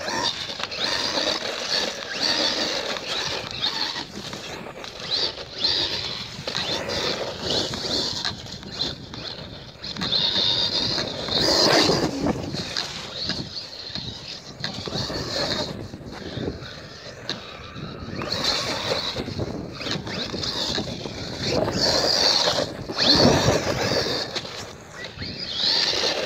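Hosim 2845 1:16-scale brushless RC truck on paddle tyres driving over gravel and through a puddle: a high motor and drivetrain whine with tyre noise, surging and easing with the throttle several times.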